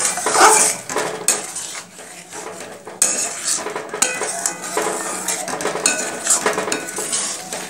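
A spatula scraping and knocking against a kadai as pointed gourds in a thick milk gravy are stirred, in irregular strokes.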